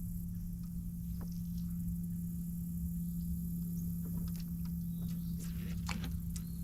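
A steady low hum with a low rumble under it, with faint scattered clicks and ticks, more of them in the second half.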